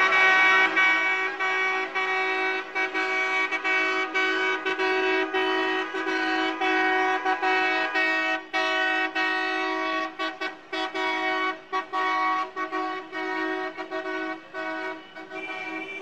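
Many car horns honking at once in street traffic, long held blasts overlapping almost without a break, with short gaps that come more often in the second half.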